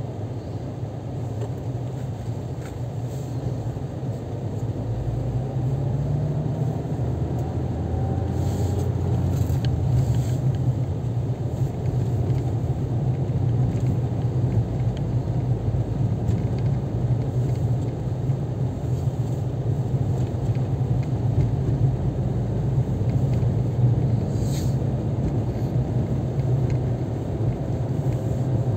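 Moving car heard from inside the cabin: a steady low drone of engine and tyres on the road. It grows louder over the first several seconds as the car gathers speed, with a faint rising engine whine.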